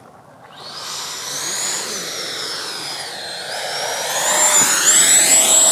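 Electric ducted fan of an FMS F-16 80mm RC jet whining as it flies past, starting about half a second in. Its whine dips in pitch and then climbs to a steady high tone, louder toward the end.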